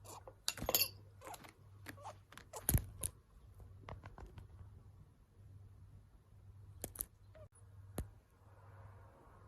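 Female budgerigar's abnormal breathing noises: a string of short puffing clicks at irregular intervals, the sign of sinusitis.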